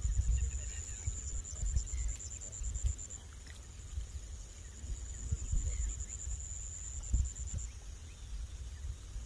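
Wind rumbling in gusts on the microphone, with a high, rapidly pulsing insect buzz that stops about three seconds in, returns a second or so later and drops out again near the end.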